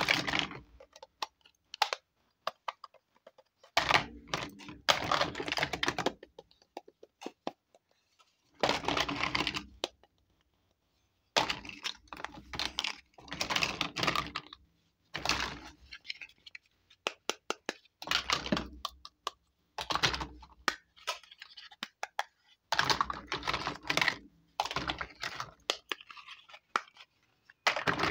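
Small hard plastic toy kitchen pieces clattering and clicking against each other as hands rummage through a heap of them, in runs of quick clicks with short pauses between.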